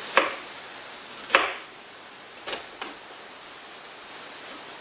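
Sharp knocks from kitchen prep work: two loud ones about a second apart, then two fainter ones close together about halfway through.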